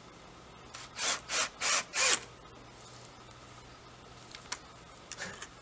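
Four short scrapes of wood rubbing on wood in quick succession, about a second in, followed by a couple of faint ticks.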